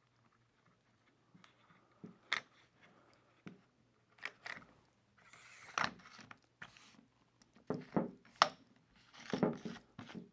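Handling noise of a carbon fiber tripod leg being reassembled: light plastic clicks and taps, with a couple of short sliding scrapes about halfway through as a leg section is pushed into the next tube, and a run of louder clicks near the end.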